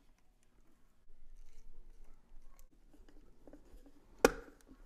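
Faint handling sounds as electrical wires are twisted into plastic wire nuts on a garbage disposal's wiring connection, with one sharp tap a little over four seconds in.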